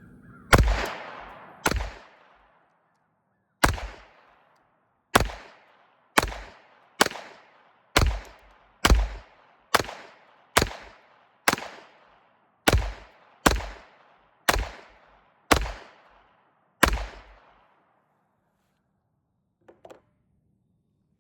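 Taurus TX22 .22 LR semi-automatic pistol firing sixteen single shots, one full magazine, at a steady irregular pace of about one shot a second. A faint short click follows a few seconds after the last shot.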